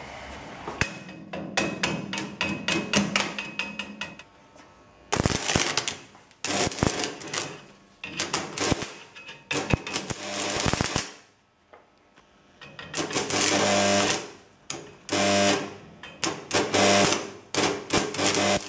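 AC stick (shielded metal arc) welding arc crackling and sputtering as the electrode burns against a steel plate, with a buzz under the crackle in the loudest stretches. The arc goes out and is struck again several times, with a clear break a little after the middle.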